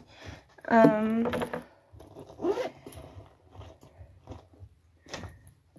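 A woman's brief wordless vocalisation, like a hum, about a second in, with a shorter one a little later. Between them, faint rustling, scraping and clicks of objects being handled.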